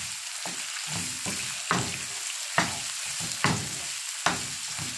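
Raw shrimp sizzling in oil with garlic in a nonstick skillet, while a wooden spatula stirs them, scraping and knocking against the pan about once a second.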